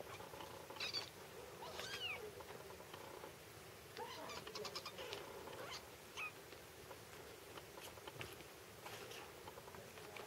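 Kittens playfighting, with a few short, high mews that bend in pitch, about two seconds in and again about four seconds in, over faint scuffling and scratching of claws on the blanket.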